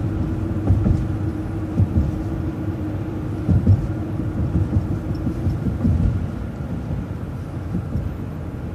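Transit bus riding along a road, heard from inside: a low rumble of engine and tyres with irregular low thumps and rattles from the body, and a steady hum that fades about three seconds in.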